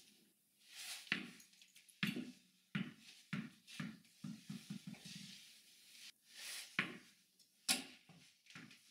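A tennis ball dropped onto a tile floor and bouncing: the first hard bounce about a second in, then repeated bounces coming quicker and quicker as the ball loses height and settles.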